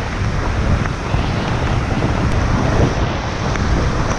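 Wind buffeting the microphone in a steady rumble, over the wash of small waves running up the sand.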